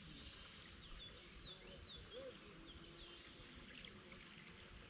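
Faint outdoor ambience: a low, steady noise, with a small bird giving a run of about six short, high, falling notes between about one and three seconds in.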